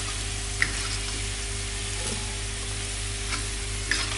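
Pempek adaan (fish-and-sago balls) deep-frying in hot oil in a steel wok: a steady sizzle, with a few sharp clicks of a metal spatula against the wok. The balls are at the end of frying, cooked and ready to be lifted out.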